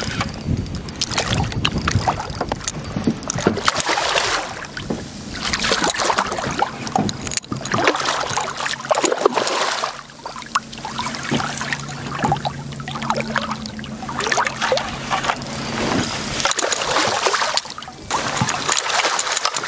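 A hooked redfish thrashing and splashing at the water's surface beside a small boat, in irregular noisy surges with many short clicks. A steady low hum runs through the middle of the stretch.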